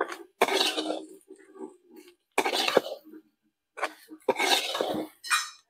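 Metal spoon scraping and stirring a dry, crumbly upma mixture in a metal kadai, in about five short scraping strokes with a few sharp clinks of the spoon against the pan.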